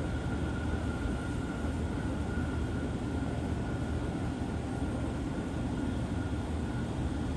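A steady low rumble of vehicle noise with a faint, constant high whine over it.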